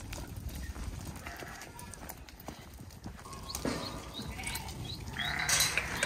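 A flock of sheep moving about a dirt yard, their hooves scuffing and tapping on the ground, with a low rumble of wind on the microphone.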